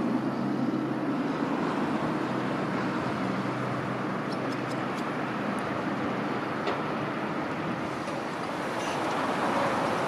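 Jet engines of a taxiing Boeing 777-300ER, its twin GE90 turbofans running at low thrust: a steady rushing noise with a low hum that eases after a few seconds.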